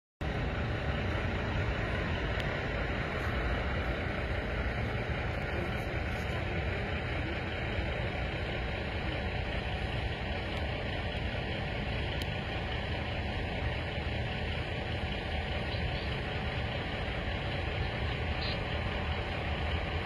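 Steady rumble of idling vehicle engines, even and unbroken, with no siren or voices standing out.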